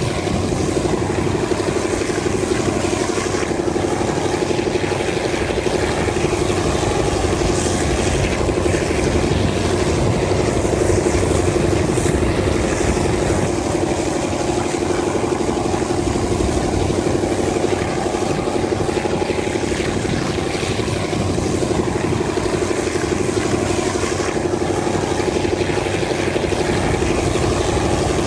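TCDD DE 24000 diesel-electric locomotive's engine running steadily under power as the train moves, a continuous drone heard from a coach window.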